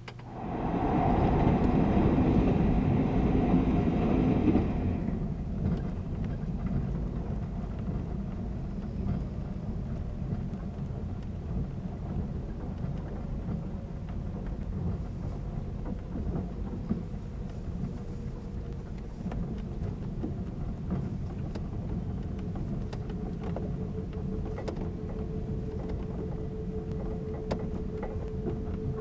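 Running noise of a 583-series sleeper train heard from inside, from a lower berth over the motor car's bogie: a steady low rumble of wheels and bogie on the rails. A loud, harsh rush of noise fills the first five seconds, and afterwards a faint hum slowly drops in pitch.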